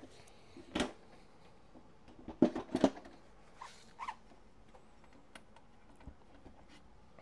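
Scattered clicks and knocks of power wheelchair parts being handled, with a quick cluster of several sharp knocks about two and a half seconds in.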